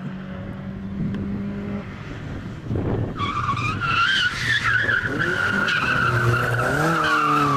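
A Škoda rally car's engine runs for the first three seconds. Then, about three seconds in, its tyres squeal loudly and steadily as it slides through a tight corner, with the engine revving up in rising pitch near the end.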